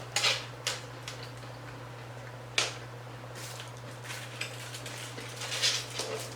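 Hard corn taco shells crunching as they are bitten and chewed, in irregular sharp crunches, the loudest about two and a half seconds in, over a steady low hum.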